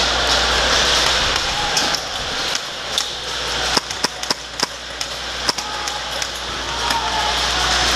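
Airsoft guns firing single shots: sharp cracks and snaps, a handful clustered between about four and five and a half seconds in, over a steady hum and hiss of the hall.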